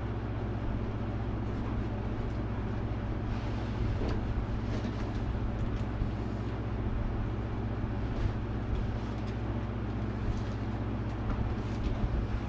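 Steady low hum throughout, with scattered light clicks and rustles of a cardboard shipping box being cut open and the boxed model horse lifted out of it.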